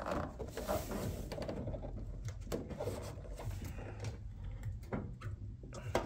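Plastic OEM MTech 1 side skirt being handled and pressed against a BMW E30's sill to mark its clip positions: light rubbing with scattered small knocks and clicks.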